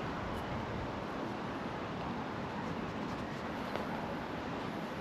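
Steady rushing of flowing river water, with one faint click near the end.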